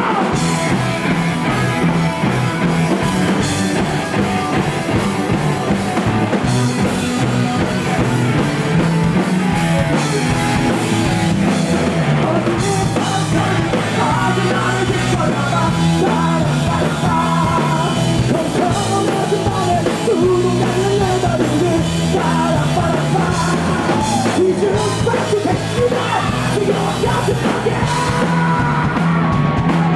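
Live rock band playing loud, with electric guitars through amplifiers and a drum kit with cymbals.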